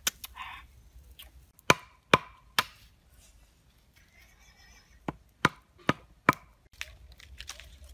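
A wooden stake being hammered into the ground with a chunk of wood to make a spit support: sharp wooden knocks, one at the start, three in quick succession about two seconds in, then four more about five to six seconds in.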